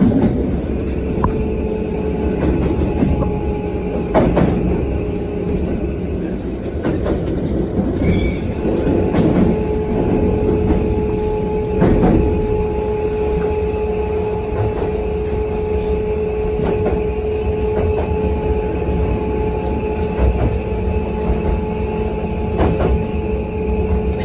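Japanese subway train running, heard from inside the car: a steady rumble of wheels on the track with a constant motor hum, broken by scattered short knocks and clicks.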